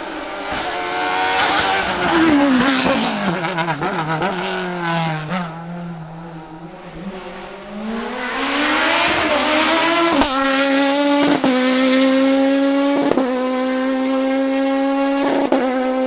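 Sports prototype race car at full throttle. Its engine pitch rises, then drops as the car passes and slows for the bend, and climbs again as it accelerates away. In the second half the engine is broken by four quick upshifts, each a sharp cut in the sound.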